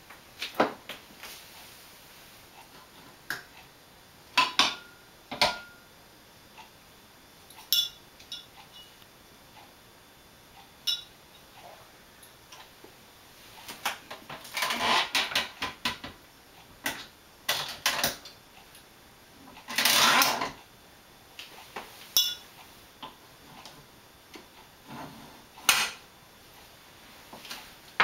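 Handling noise of a red floor wine corker and glass wine bottles: scattered clinks and knocks of bottles, then a cluster of mechanical clunks and scraping as the corker's lever is pulled down to drive a cork. The loudest sound is a noisy burst about a second long, about two-thirds of the way through.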